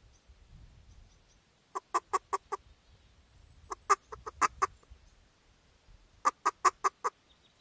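Duck call blown in three short series of about six quick, clipped notes each, a pause between the series. These are soft feeding sounds, given sparingly to show a circling duck that the decoy spread is a live, content flock.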